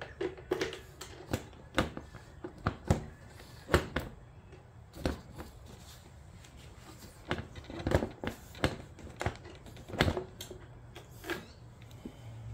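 Irregular clicks and knocks as the seat of a 2022 Yamaha MT-10 motorcycle is unlocked and lifted off, plastic and metal parts clacking.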